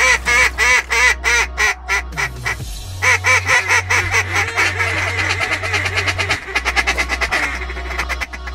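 Duck call blown at circling mallards: a series of loud quacks about three a second, then a fast feed-call chatter from about three seconds in, over a low steady drone.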